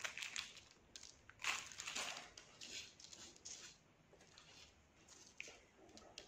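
Faint crinkling of a clear plastic bag and rustling of small red foil stars as they are taken out by hand, in short bursts during the first few seconds, then only a few soft ticks.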